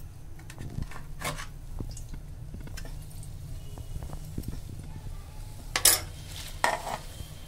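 Scattered clinks, then a few louder knocks about six seconds in, as a metal plate and a hand scrape ambada (roselle) leaves into an aluminium pressure cooker, over a steady low hum.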